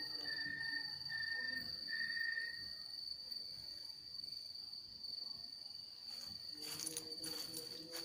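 Night insects calling: one keeps up a continuous high-pitched trill, while a second, lower call comes in short repeated pulses for the first few seconds and then stops. About seven seconds in there are a few brief soft noises, and a faint low hum comes in.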